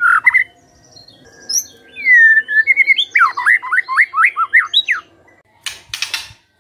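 White-rumped shama singing: loud whistled rising and falling notes, a long falling whistle about two seconds in, then a quick run of sweeping notes. Near the end comes a short harsh burst of noise.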